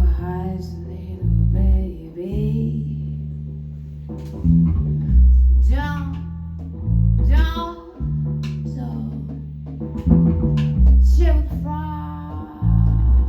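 A live band playing: bass guitar notes change every second or so under guitar, with a melodic line above that bends in pitch and returns every few seconds.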